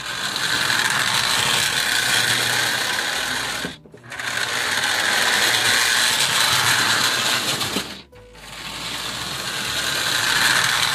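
A Lionel toy electric steam locomotive running along metal track with a steady rattling whir of its motor and gears. It stops briefly twice, about four and eight seconds in, as it changes direction. It is a test run of a used engine, which runs in forward and reverse.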